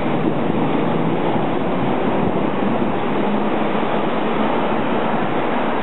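Berlin U-Bahn train pulling out of an underground station, its cars running past the platform with a steady rolling rumble of wheels and motors.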